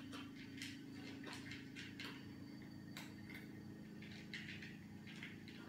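Two cats eating dry kibble from a plastic bowl: faint, irregular crunching and clicking as they chew and nose the bowl, over a steady low hum.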